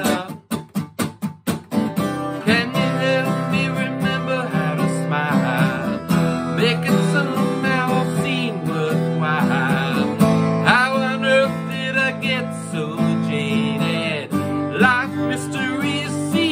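Acoustic guitar strummed, with a man singing along. It opens with a quick run of about eight short, choked strums in the first two seconds, then settles into steady chord strumming under the voice.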